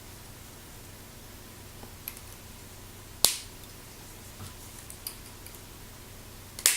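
Plastic Lego pieces clicking as they are handled and snapped together: a few small ticks and one sharp click about three seconds in.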